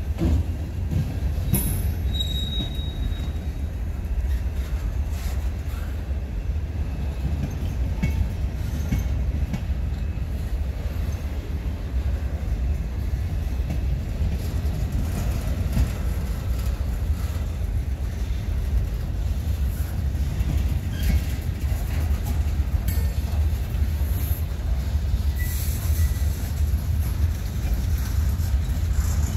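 Norfolk Southern manifest freight train rolling past on the rails, a steady low rumble throughout. A brief high-pitched wheel squeal comes about two seconds in.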